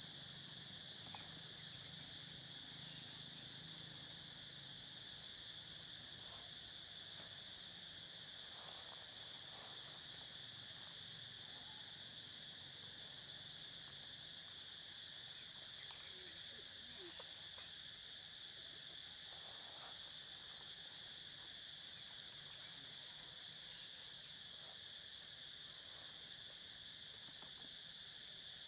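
Steady chorus of insects, a constant high-pitched shrill drone, with a few faint clicks.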